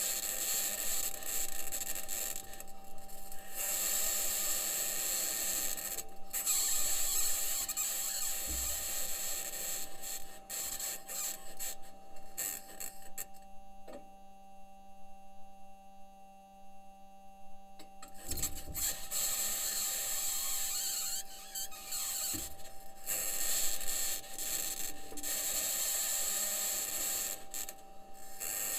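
Perseverance Mars rover driving, picked up by its entry, descent and landing microphone: a high-pitched scratching noise that comes and goes and fades for a few seconds near the middle, over steady hum tones, with a few low knocks from the wheels and suspension working over the ground. The scratching is either electromagnetic interference from one of the rover's electronics boxes or the mobility system interacting with the Martian surface.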